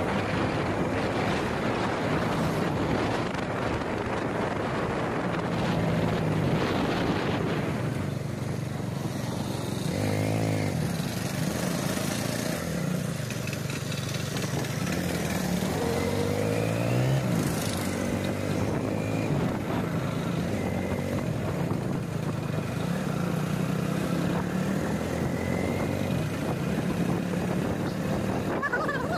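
Motorcycle engine running while riding, its pitch wavering up and down with the throttle. Wind rushes over the microphone during the first several seconds.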